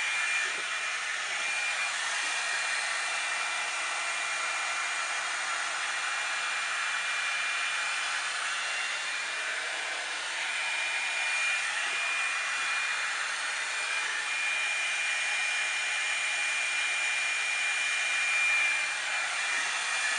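Revlon One Step volumizer dryer brush running steadily, a rush of blown air with a thin high whine that fades and returns.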